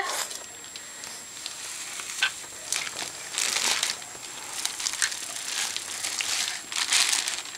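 Plastic packaging crinkling and rustling in irregular bursts as a toddler grabs and pulls at it.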